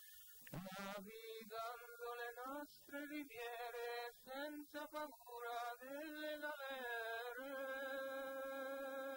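A single unaccompanied voice singing a slow melody in short phrases, then holding one long steady note over the last couple of seconds.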